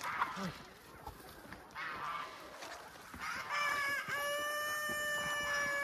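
A flock of free-range chickens clucking, then a rooster crowing a bit past halfway: one long, loud, held crow.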